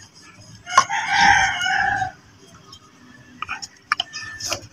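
A rooster crows once, a single call of a little over a second starting about a second in. A few light clicks and taps follow near the end.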